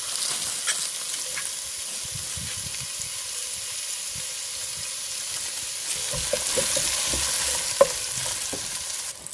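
Chopped onions sizzling steadily in hot oil in a stainless steel pot. In the second half, a wooden spatula stirs them, scraping and knocking against the pot, with one sharp click near the end.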